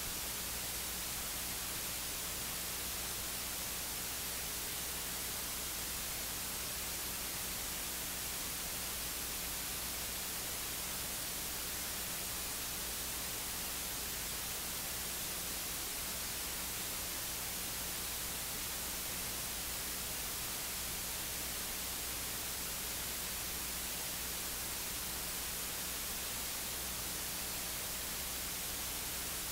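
Steady electronic hiss with a low hum underneath and no change at all: the noise floor of a dead or disconnected audio feed, with the preacher's voice not picked up.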